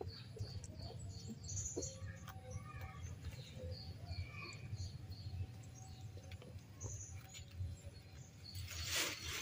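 Faint high-pitched chirps, scattered through the first half, over a low steady hum. About nine seconds in there is a short, louder rustling noise.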